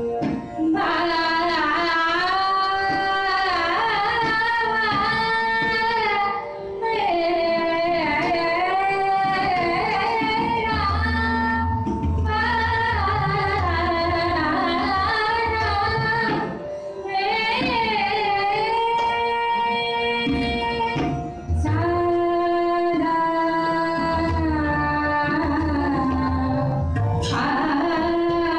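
A woman singing raga Yaman in Hindustani classical style, with long phrases whose pitch glides and wavers, and short breaths between them about a quarter, a half and three quarters of the way through. Tabla plays beneath the voice.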